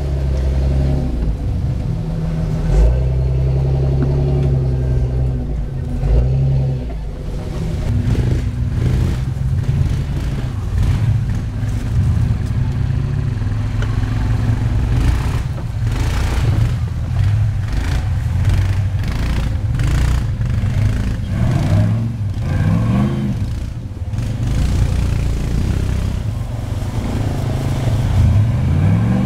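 Off-road rock-crawler buggy engine running at low revs as the buggy crawls over rough ground, with short blips of throttle. The revs rise sharply about two-thirds of the way in and again near the end.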